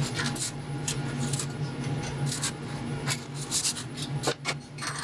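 Steady low hum of an idle mini vertical machining centre, with a scatter of short scrapes and clicks from work being handled around it, about one or two a second.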